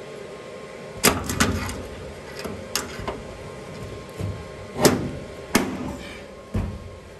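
Locking C-clamps being worked on a steel chassis rail: a series of sharp metallic snaps and clacks, about seven of them spread across several seconds, the loudest about a second in and near five seconds.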